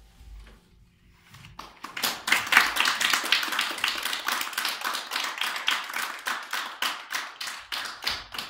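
Audience applauding, starting about a second and a half in and stopping near the end. Before it, the grand piano's final chord dies away.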